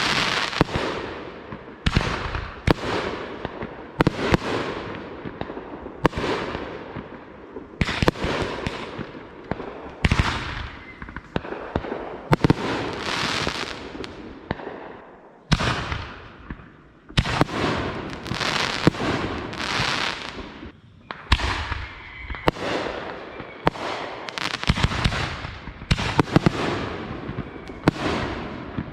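Fireworks going off one after another: sharp bangs roughly once a second, each trailing off in a fading hiss.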